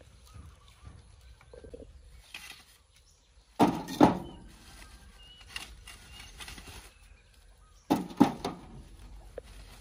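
Lumps of charcoal knocking together and against a steel barbecue trough as they are laid in, in two short clusters of knocks about four seconds apart. Faint bird chirps come in between.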